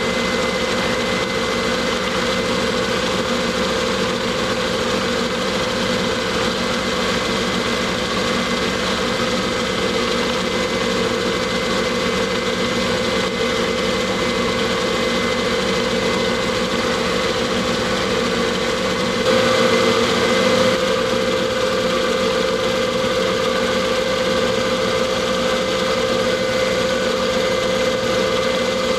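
Metal lathe running steadily with a constant motor and gear hum while turning a taper on a steel part, getting briefly louder about two-thirds of the way through.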